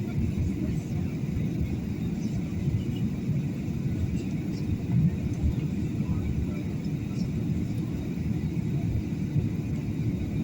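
Airliner cabin noise on final approach: a steady low rumble of the engines and airflow.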